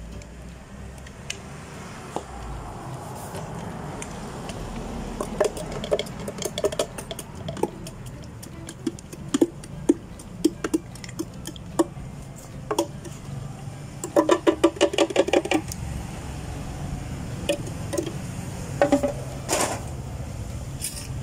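Clinks and knocks of cups, utensils and ice as drinks are made, with a quick run of rattling strokes about two-thirds of the way through.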